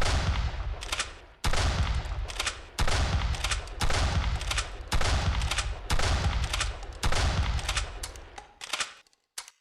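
Mossberg 590 pump-action shotgun firing a run of about six shots, roughly one every second or so, each loud blast trailing off in a long low rumble. A short sharp click comes near the end.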